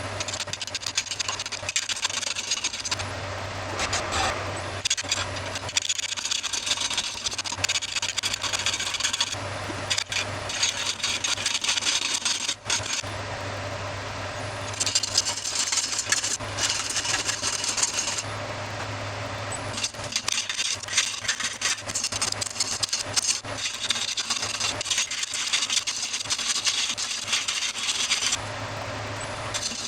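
An electric woodworking machine hums steadily while a tool works yew wood in repeated stretches of several seconds, a rasping scrape over the hum that drops back to the bare motor hum in between.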